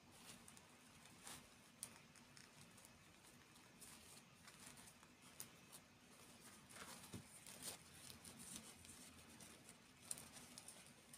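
Faint, scattered small clicks, taps and rustles of light handling, a little busier around the middle and with a sharper tick near the end, over a low steady hum.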